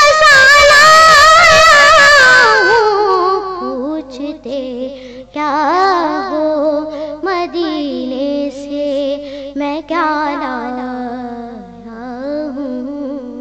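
A boy singing an Urdu naat, drawing out a phrase without words: a long high held note that glides down about two seconds in, then a lower, wavering melodic line that fades out near the end.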